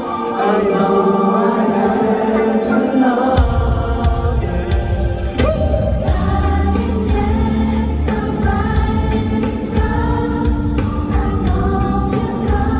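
Live song played loud through a concert PA in a large hall, with a singing voice over a backing track; the heavy bass and beat come in about three and a half seconds in.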